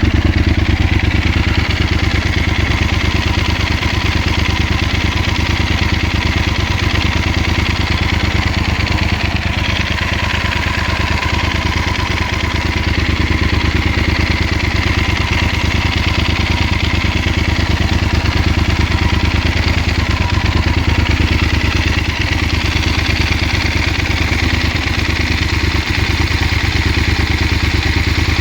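2016 Yamaha XT1200Z Super Ténéré's parallel-twin engine idling steadily, with an even, pulsing exhaust note and no revving.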